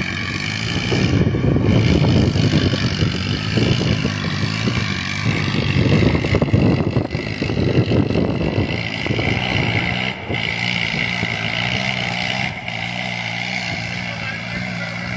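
Tractor diesel engine running hard at high revs under heavy load as its rear wheels spin on the tarmac. It is loudest for the first several seconds, then settles into a steadier engine note.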